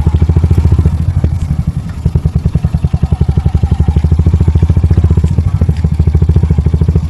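Royal Enfield Hunter 350's single-cylinder engine running at low revs with a rapid, even beat, easing off briefly about a second and a half in.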